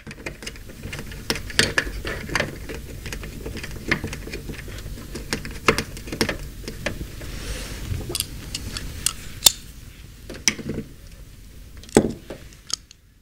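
Irregular small clicks, taps and rattles of hands working parts inside an LED light fixture's housing: the cable gland's nut being threaded on and tightened, with wires and parts knocking against the housing.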